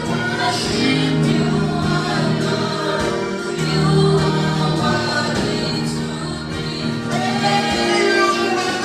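Gospel worship music: a group of voices singing together over steady low held notes and a light regular beat.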